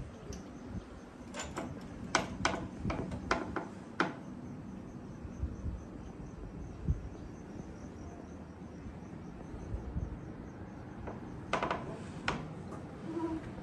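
A run of sharp clicks and taps about one to four seconds in and again near the end, over a faint, evenly repeating high chirping.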